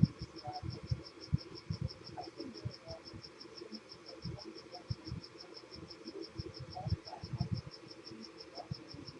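An insect, likely a cricket, chirping steadily in a rapid, even high-pitched pulse of about six chirps a second, with soft irregular low thumps underneath.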